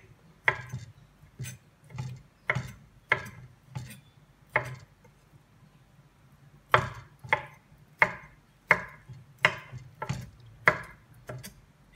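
A large kitchen knife chopping peeled raw prawns on an end-grain wooden cutting board: separate sharp knocks of the blade on the wood, about two a second, with a pause of about two seconds midway.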